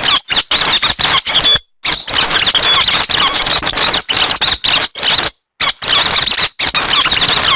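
Rapid, high-pitched chattering and squeaking calls of the bird known in Vietnamese as 'hec xoan', played as a recorded trapping lure call. The calling comes in stretches separated by short, abrupt silences, with a longer break about two seconds in and another just past five seconds.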